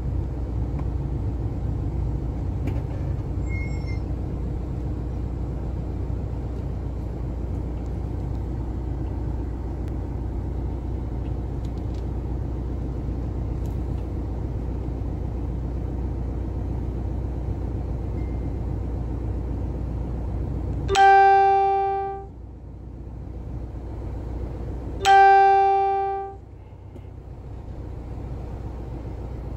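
Car engine running at low speed, heard from inside the cabin as a steady low rumble. About two-thirds of the way in come two horn honks about four seconds apart, each about a second long, sounded at a lion blocking the track.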